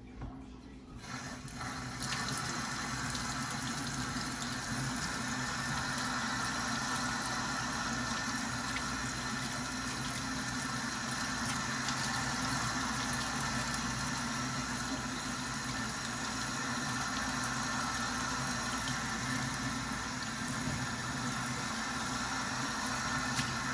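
Kitchen tap running steadily into a sink, turned on about two seconds in.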